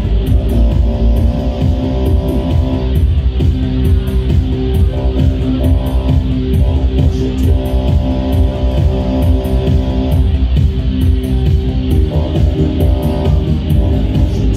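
Loud live music from a solo performer's electronic setup on stage, with sustained pitched tones and a steady beat, heard through the concert PA.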